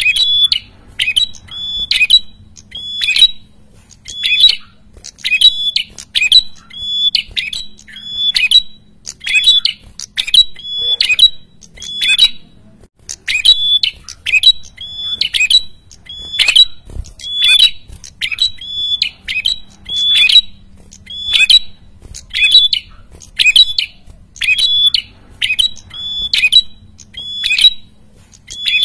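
A prenjak kepala merah (red-headed prenjak) calls continuously in loud, noisy song, giving short, sharp, high calls about one and a half times a second. This is the territorial calling that draws rival birds to answer and come close.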